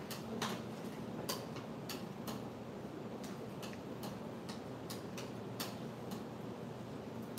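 Steel palette knife mixing printing ink on a glass slab: light, sharp clicks at an irregular pace, roughly one or two a second, as the blade strikes and scrapes the glass.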